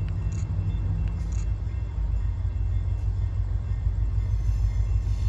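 Low, steady rumble of an approaching train's diesel locomotive heard from a distance.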